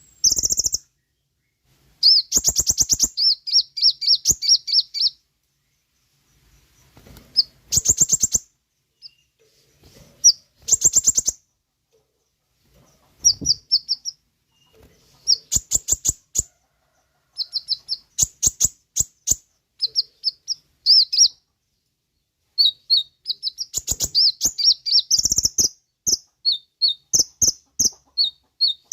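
Kolibri ninja (konin) sunbird singing: bursts of rapid, high-pitched chirping trills, each lasting a second or few, broken by short pauses.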